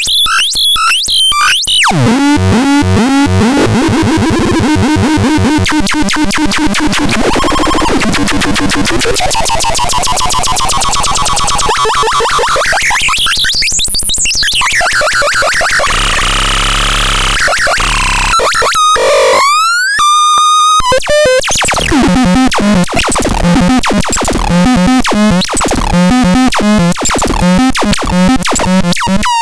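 Synthesizer being played for a sound demo: buzzy, rapidly pulsing tones, with a sweep that rises very high and falls back about midway. Brief chirping glides follow, then a repeating pattern of short notes about twice a second near the end.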